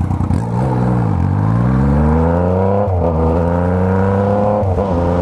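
Motorcycle engine easing off, then accelerating up through the gears: the pitch dips about a second in, climbs, and drops back at two upshifts, near three seconds and near five.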